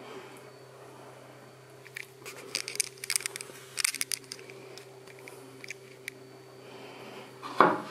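A cluster of light clinks, clicks and scrapes of things being handled, over a steady hum, with one louder knock near the end.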